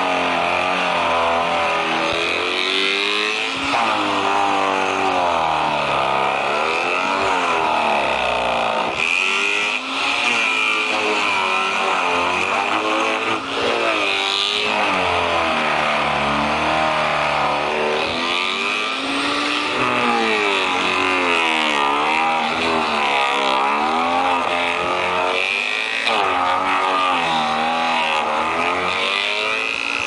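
Engine-driven branch shredder running under load, its engine note dipping and recovering again and again as branches are fed in and chewed through.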